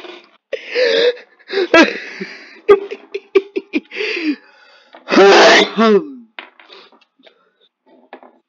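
A young woman talking, with one loud, drawn-out shout lasting about a second around five seconds in.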